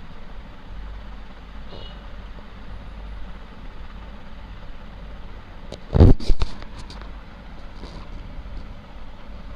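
A metal ladle stirring thick mutton keema gravy in a large aluminium pot, over a steady low hum. About six seconds in comes a quick run of loud metal knocks as the ladle strikes the pot, followed by a few lighter taps.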